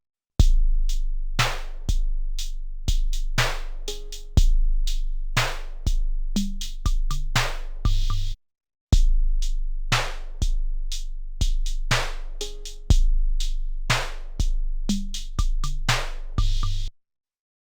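A drum beat played back from an Akai MPC sampler: deep kicks with a long low boom, sharp snare hits and ticking hi-hats. The same pattern of about eight seconds plays twice, with a short break between the two passes, and stops about a second before the end.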